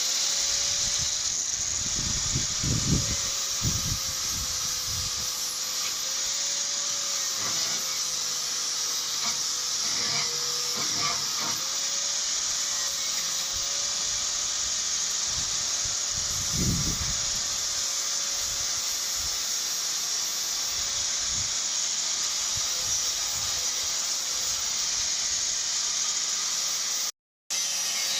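Angle grinder with a cut-off disc cutting through the corroded steel of a Triumph Spitfire chassis outrigger: a steady high hiss of disc on metal over the motor's whine, which wavers slightly in pitch as the load changes. A few low knocks come through a few seconds in and again about two-thirds of the way through.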